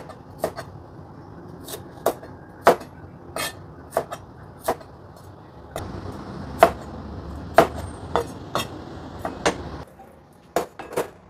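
Chinese cleaver chopping bell peppers on a cutting board: irregular sharp knocks of the blade on the board, about one or two a second, with a steady rushing noise for about four seconds midway.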